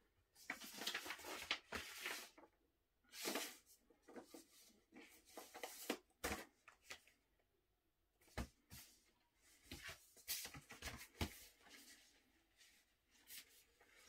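An LP record being handled with its paper inner sleeve and cardboard jacket: bursts of rustling and sliding of paper and card, with a few light taps.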